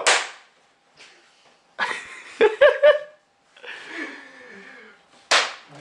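Young men's stifled laughter: short breathy bursts and snickers, with a cluster of quick laugh pulses about two seconds in, as they try to keep a straight face.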